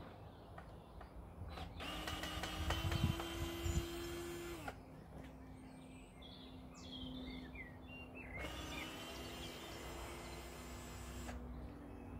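Hychika DD18F 18 V cordless drill driver running in two runs of about three seconds each, a steady motor whine as it backs decking screws out of timber. Birds chirp between the two runs.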